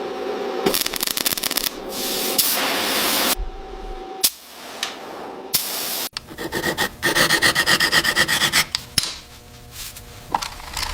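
Fast rubbing strokes of hand scrubbing or abrading a surface during deep cleaning, heard as a string of short clips with abrupt cuts; the quickest run, after the middle, goes at about six strokes a second.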